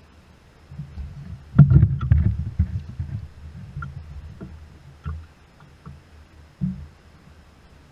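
Knocks and bumps on a kayak, with scattered small clicks of gear being handled; a cluster of heavier thumps comes about one and a half seconds in, and one more single thump near the end.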